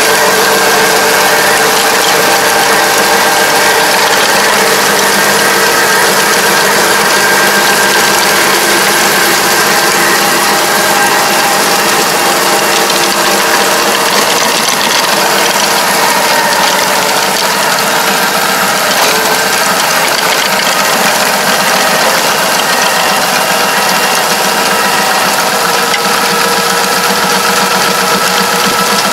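Semi-crawler tractor's engine running under load as it drives a Kobashi Gaia levee-building machine (rotary ridge plasterer) through the PTO: a steady mechanical din of engine, gear drive and the spinning rotor and disc working the soil, with a few steady whining tones.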